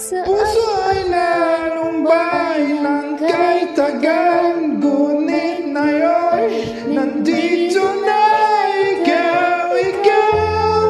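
Singing of a Tagalog pop love ballad over a karaoke backing track, the voice holding and bending long notes.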